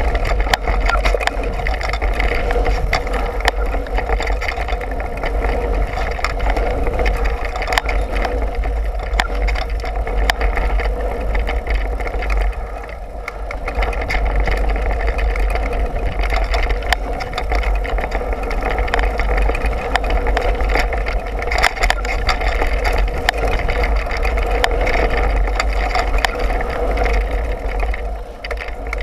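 Wind rushing over an action camera's microphone and mountain-bike tyres rolling fast over a dirt trail, with frequent clicks and rattles from the bike jolting over bumps.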